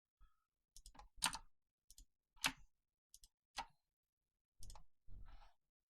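Several faint, sharp clicks of a computer mouse, spaced irregularly, as lines are drawn and dimensions are set in CAD software. Near the end come two softer, longer noises.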